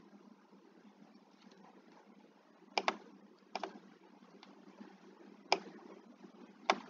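Computer mouse clicking: a quick pair of clicks about three seconds in, then single clicks spaced a second or two apart, five in all, over a faint background hiss.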